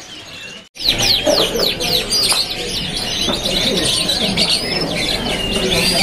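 Many caged canaries chirping and singing together, with rapid overlapping high falling notes. They start after a brief drop-out about a second in.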